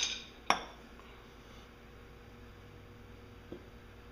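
Metal gears and clutch parts of a MerCruiser Bravo sterndrive upper unit clinking against each other and the housing as the assembly is worked out: a short clatter at the start, one sharp clink about half a second in, and a faint tick near the end.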